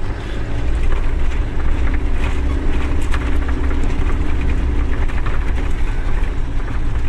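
Truck engine running with a steady low rumble that grows louder about a second in.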